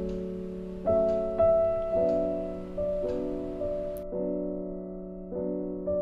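Background piano music: gentle chords struck about once a second, each ringing out and fading.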